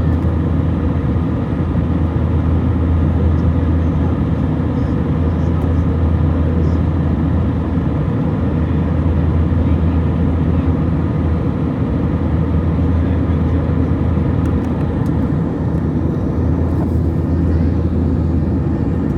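Steady jet engine noise and airflow of an Airbus A321 in flight, as heard inside the cabin: a constant low hum with a dense even rush over it.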